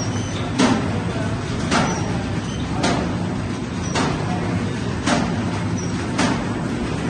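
Fully automatic paper bag making machine running, a steady low mechanical hum with a sharp clack about once a second as it cycles.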